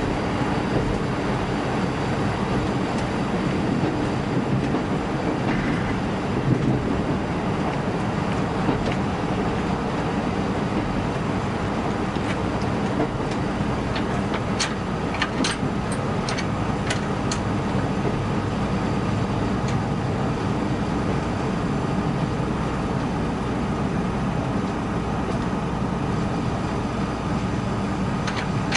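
Steady low rumble inside the passenger cabin of a JR Kyushu KiHa 185 series diesel railcar. A few sharp clicks and taps come about halfway through, and a faint steady tone sets in at the same time.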